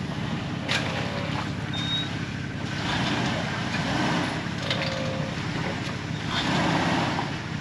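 Jeep engine working under heavy throttle as it climbs a rock ledge. The engine note swells louder several times as power is fed in.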